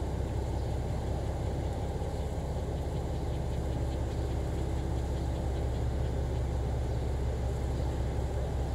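JR Shikoku 2000-series diesel railcar idling at a standstill: a steady low engine rumble.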